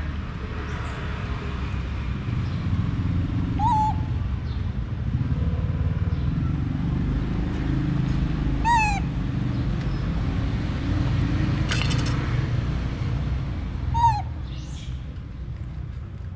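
A young monkey gives three short, high calls a few seconds apart, the later two falling in pitch. A single sharp click comes between the last two calls.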